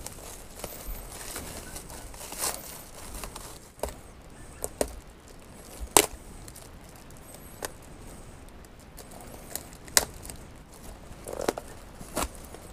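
Plastic wrapping and packing tape rustling and tearing as a parcel is pulled open by hand, with several sharp snaps, the loudest about six and ten seconds in.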